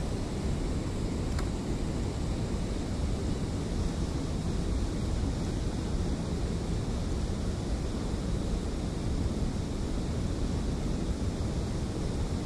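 Steady low rushing noise of wind on the microphone, with no distinct events.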